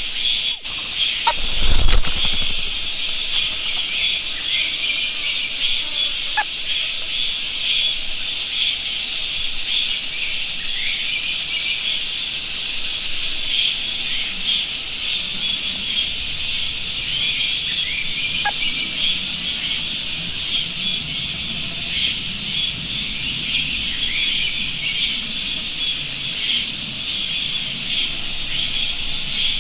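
A flock of small birds chirping and chattering continuously, many overlapping high-pitched calls, with a brief low thump about two seconds in.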